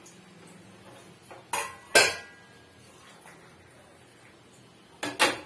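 Stainless steel pots and plate lids knocking against each other and the stovetop as they are handled: two sharp metal clanks about one and a half and two seconds in, the second loudest and briefly ringing, then two more close together near the end.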